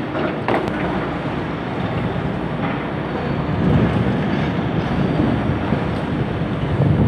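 High-reach demolition excavator tearing into a concrete office building: steady machine noise with a few sharp cracks of breaking concrete and falling debris in the first few seconds. Wind on the microphone adds a low rumble that grows louder in the second half.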